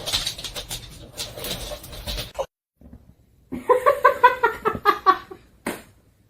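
Rustling and tapping noises, then after a short break a quick run of high, chirping calls about five a second, typical of a cat chattering or chirping.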